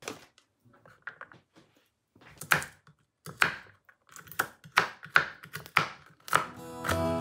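Knife chopping walnuts on a plastic cutting board: light rustling and clicks from a plastic bag of walnuts at first, then a quick series of about ten sharp knocks as the blade hits the board. Acoustic guitar music comes in near the end.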